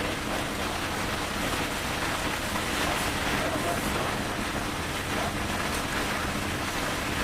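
Steady rushing noise at a constant level, with faint voices in the background.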